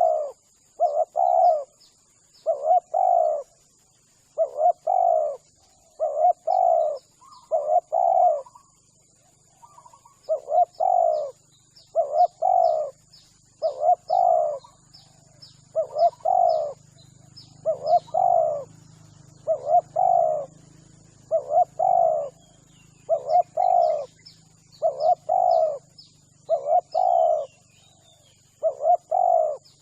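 Spotted dove cooing over and over, each phrase a quick pair of soft low notes repeated about once every second or so, with a brief pause about nine seconds in. Faint high-pitched chirps and a thin steady high tone sit far behind it.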